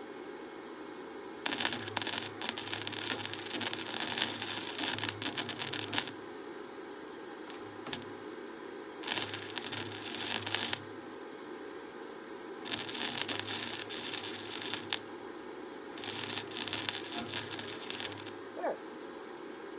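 Steel being ground or sanded with a power abrasive tool: four rasping bursts of two to four seconds each, and a short touch between the first two, over a steady machine hum.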